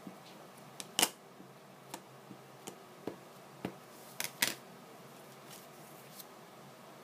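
Irregular light clicks and knocks of a stamp on its block being tapped onto an ink pad and pressed down onto paper tags on a tabletop. The sharpest knock comes about a second in, with a quick double knock a little past halfway.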